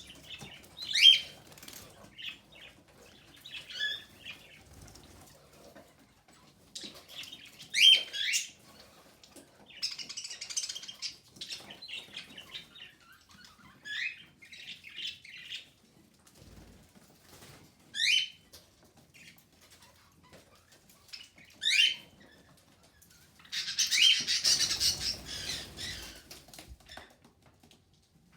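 Budgerigars giving short, sharp chirp calls every few seconds. There are two longer bursts of rustling noise, one near the middle and a louder one near the end.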